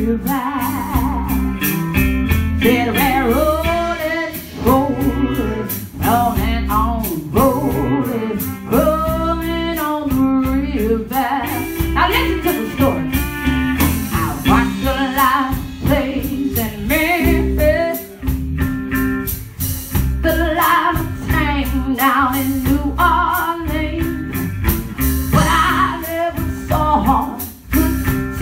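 Live band playing loud, continuous music: electric guitar, drum kit and trumpet over a steady driving beat.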